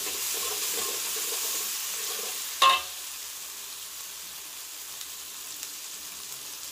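Chili, onion, garlic and ginger paste with curry powder frying in oil in a metal wok: a steady sizzle, with a spatula stirring and scraping through it for the first couple of seconds. One sharp clank of the utensil on the wok about two and a half seconds in, then the sizzle goes on alone, a little quieter.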